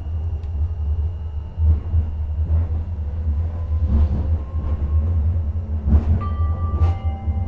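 Stadler Citylink Class 399 tram-train heard from inside the passenger saloon while running: a steady low rumble with occasional knocks from the wheels and running gear. A few steady high tones come in about six seconds in.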